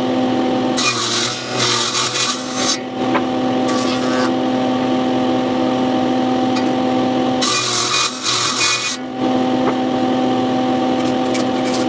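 Electric power tool running with a steady whine, twice cutting into wood with a rough, rasping noise: once about a second in for two seconds, and again near the end of the first three quarters for about a second and a half.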